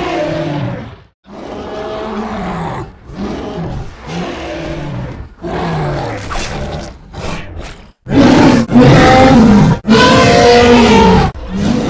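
Cave bear vocal sound effects: a series of separate growls and grunts, each with a falling pitch. About eight seconds in come much louder, long roars, then one more growl.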